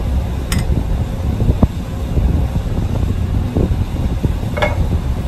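Steady low rumble, with a light click about half a second in and a few faint knocks.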